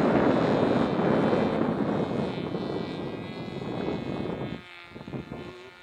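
Homemade plastic RC model airplane in flight, its motor and propeller giving a steady whine. A louder rushing noise underneath falls away about four and a half seconds in, leaving the whine fainter.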